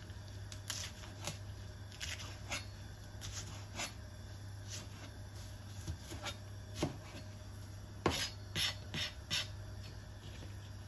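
Chef's knife slicing spring onions on a plastic cutting board: irregular taps of the blade on the board, with a quicker run of cuts about eight seconds in, over a steady low hum.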